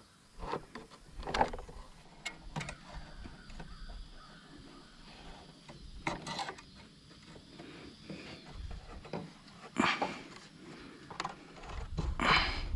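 Irregular light clicks, taps and rattles of small metal parts as a lawn tractor's carburetor is unhooked from its choke and throttle linkage by hand, with the sharpest knocks about a second in, around six and ten seconds in, and near the end.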